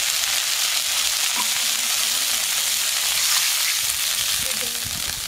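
Water hitting hot oil and spice paste in a wok over a wood fire, sizzling loudly and steadily, easing off a little near the end.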